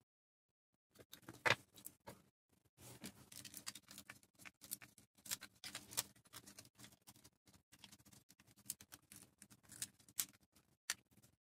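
Faint, irregular clicks, taps and scrapes of small tools and parts being handled at an electronics workbench, starting about a second in.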